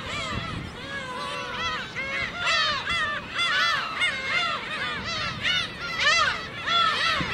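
A colony of black-tailed gulls calling: a dense chorus of many overlapping cat-like mewing calls, each rising and falling in pitch.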